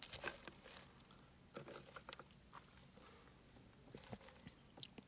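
Near silence: room tone with a few faint clicks and rustles, and one slightly louder tick near the end.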